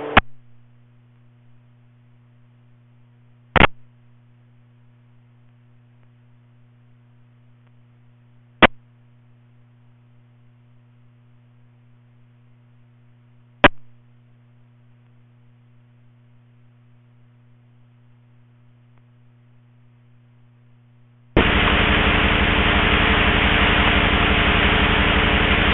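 Scanner receiving school bus two-way radio traffic: a faint steady hum broken by three short clicks about five seconds apart. About 21 seconds in, loud static with a buzz opens up suddenly and keeps going.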